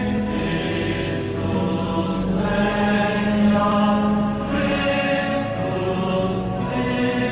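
Voices singing slow, long-held notes in a chant-like style, with sung consonants between the notes.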